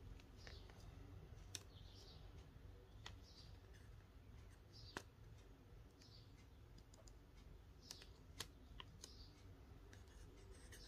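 Near-silent room tone with a few faint, sharp clicks, from a clear plastic packet of dried flowers being handled.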